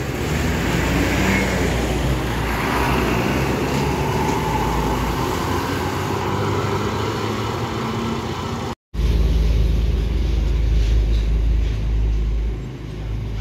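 Intercity bus engine running with road noise, steady. About nine seconds in the sound cuts out for a moment and comes back with a heavier low engine rumble.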